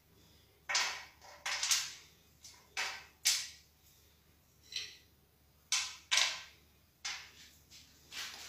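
Slivered almonds and pistachio pieces dropped one at a time into a metal tray, each landing with a short, sharp click. There are about a dozen clicks at irregular intervals.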